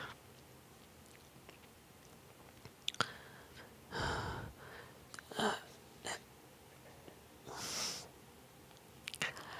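A person's quiet breathing and mouth noises: a few sharp clicks, short noisy breaths, and a hissing breath out near the end.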